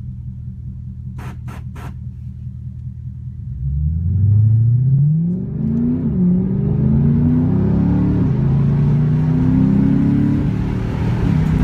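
Lexus IS-F's 5.0-litre V8 idling, heard from inside the cabin, with three quick short bursts about a second in. A few seconds in the car pulls away hard, the engine note rising with the revs and dropping back at each upshift.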